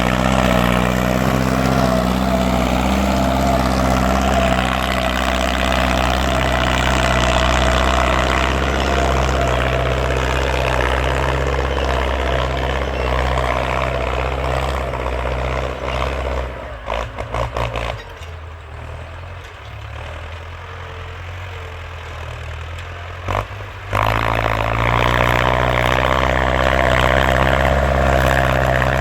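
Ford farm tractor's engine running loud and steady under throttle. About two-thirds of the way in its note breaks up and drops to a much quieter run for several seconds, then the engine comes back loud with its pitch rising.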